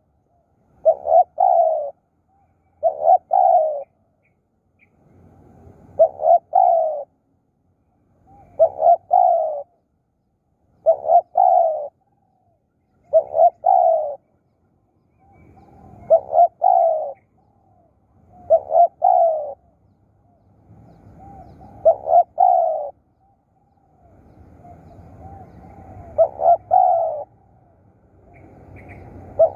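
Spotted dove cooing: a short two-part coo phrase repeated about every two to three seconds, roughly a dozen times.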